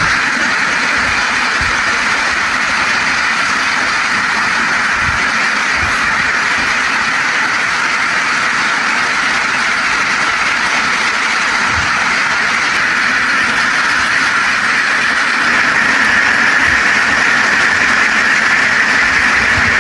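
A large flock of ducks quacking all at once in a dense, steady din that grows a little louder near the end.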